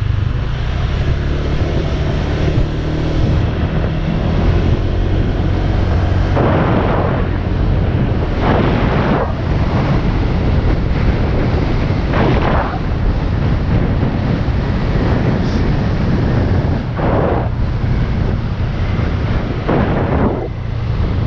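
Motor scooter being ridden through town: a steady low engine drone under heavy wind buffeting on the microphone, with several louder surges of rushing noise.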